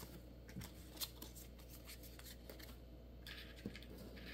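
A stack of Pokémon trading cards handled in the hands: faint rustling and a few soft taps as the cards slide against each other.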